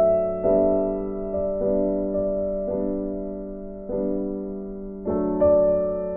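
Background music: a slow piano tune, with notes struck every second or so, each ringing and fading away.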